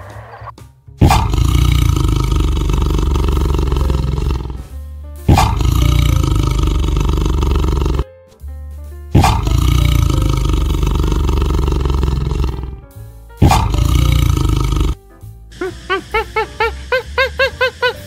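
Four long, loud roars from a large animal, each lasting two to three seconds, over background music. Near the end a quick run of short chirping calls begins, rising in pitch.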